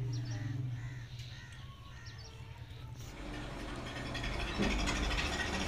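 Birds chirping, then from about three seconds in a vehicle engine comes up and grows louder into a steady running rumble.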